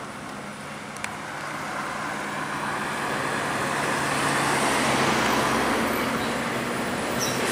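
A road vehicle approaching and passing, its engine and tyre noise building to a peak about five seconds in, then easing slightly. There is one sharp click about a second in.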